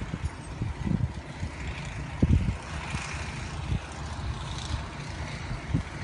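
Wind buffeting a phone's microphone: an even rushing hiss broken by irregular low thumps from gusts.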